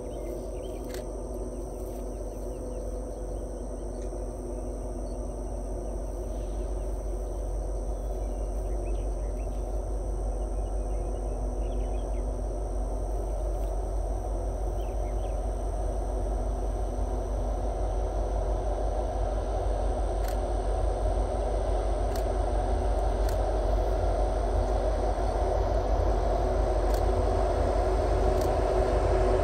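Diesel engines of BNSF EMD SD70MAC locomotives hauling a loaded coal train, approaching from a distance: a steady engine drone with a low rumble that grows steadily louder.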